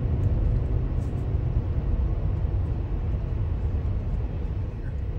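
Steady low rumble of a car driving: road and engine noise.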